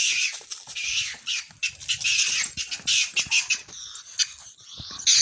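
A ferret screeching in rapid, harsh, high-pitched bursts, the defensive cry of a ferret fighting back against a German shepherd, with sharp scuffling clicks among them.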